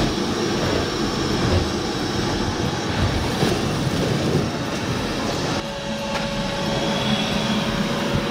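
Vacuum cleaner running steadily as the car's interior is vacuumed out, with a brief change in its tone a little over halfway through.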